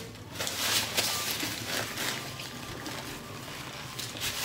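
Paper napkin rustling as it is handled and rubbed, an irregular crinkly hiss that is strongest in the first couple of seconds.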